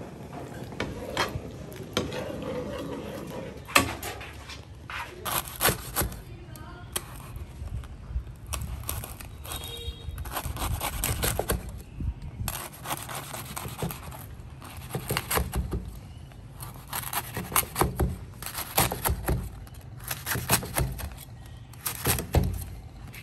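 A large kitchen knife cutting a crusty baguette on a cutting board: repeated bursts of crackling crust and knocks of the blade on the board, coming every second or two. Before that, a few single knocks of a metal ladle against the pan of thick sauce.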